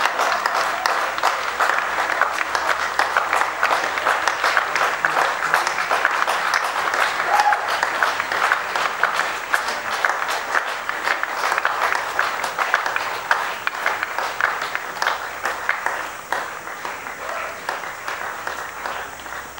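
Crowd applauding, a dense steady clapping that fades away over the last few seconds.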